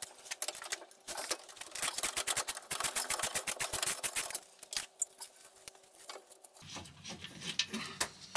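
Socket ratchet clicking rapidly through a run of strokes for about three seconds, then a few scattered clicks, as a bolt is wound out of the car's underbody brace.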